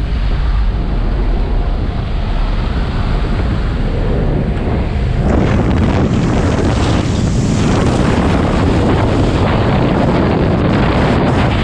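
Air rushing through the open door of a skydiving jump plane over the drone of its engines, buffeting the camera microphone. The rush grows louder and brighter about five seconds in, as the camera reaches the doorway.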